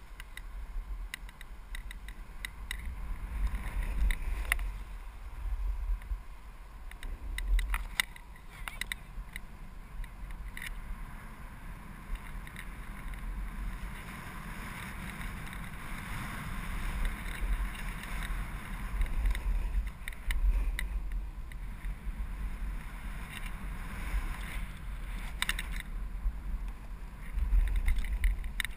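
Wind buffeting an action camera's microphone as a snowboard slides down a groomed run: a steady low rumble with the hiss and scrape of the board on snow, and scattered small knocks.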